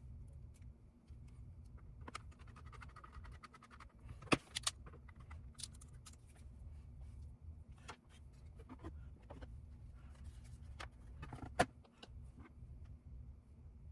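Scattered light clicks and taps of small parts and tools being handled while an external GPU enclosure is taken apart or reassembled. Two sharper knocks stand out, a little after four seconds and near twelve seconds, over a low steady hum.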